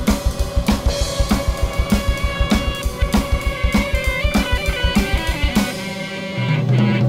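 Drum-led music: a drum kit plays a fast, steady beat of rapid kick drum with snare and cymbal hits over sustained instrumental tones. Near the end the kick drops out and a deep bass line comes in.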